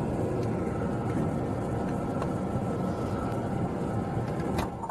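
Fume extractor fan running steadily, a rush of air with a few faint steady tones in it, cutting off suddenly with a click near the end.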